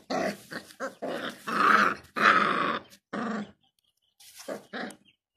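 Gultair puppies growling in a quick series of short bursts, with a few fainter ones near the end.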